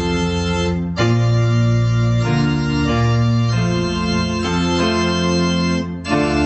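Organ playing a hymn tune in held chords that change every second or so, with brief breaks between phrases about a second in and again near the end.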